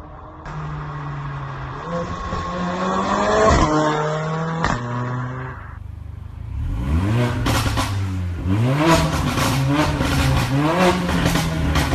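Mercedes-AMG A45's turbocharged four-cylinder engine being revved: one held rev that climbs and falls, with a couple of sharp pops, then a run of about four quick throttle blips, each rising and dropping in pitch with exhaust crackles and pops as the revs fall.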